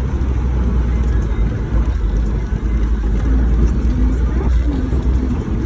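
A vehicle driving up a mountain road, with a steady loud low rumble of engine and road noise.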